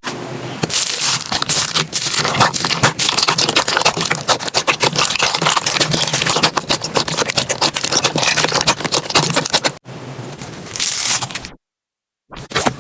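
Slime being squeezed and pressed by hand, with dense sticky crackling and popping clicks. The sound cuts off briefly near the end, then resumes.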